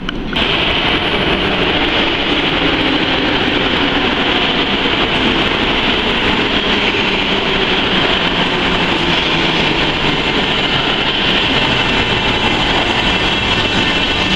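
Sofia Metro train running through the underground station: a loud, steady rumble with a hiss on top, starting abruptly just after the beginning.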